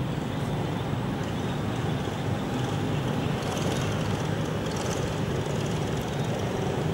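Steady low background rumble with no distinct events, and a faint patch of high hiss a few seconds in.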